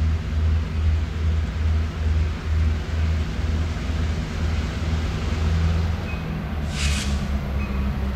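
Approaching diesel freight locomotives, a low engine rumble that throbs about twice a second. A short hiss comes about seven seconds in.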